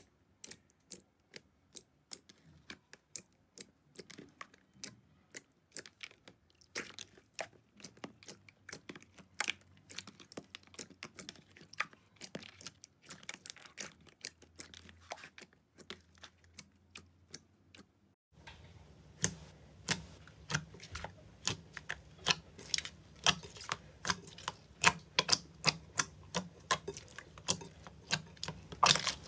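Hands squishing and pressing clear jelly slime, giving irregular sticky popping clicks. About two-thirds in the sound changes to a denser, louder run of clicks and squishes as hands knead a fluffy slime.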